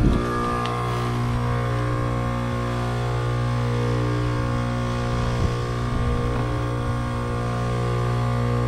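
Trane outdoor condenser unit running with a steady low electrical hum, its compressor on while the condenser fan motor, which has bad bearings, is not turning. A brief clatter at the very start and a single knock about five seconds in.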